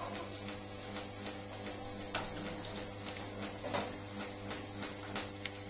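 A small machine running steadily: a constant hum with a regular pulsing, hiss on top, and a few sharp clicks about two and four seconds in.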